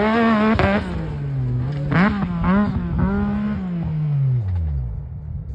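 Yamaha YXZ1000R's three-cylinder engine with a Weller Racing exhaust running hard, then lifting off suddenly under a second in, giving a few quick throttle blips around two to three seconds, and revs falling away steadily toward the end.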